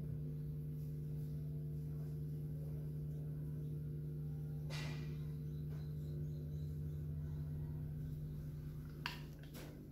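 Steady low hum made of several level tones, with a few soft clicks: one about halfway through and two close together near the end.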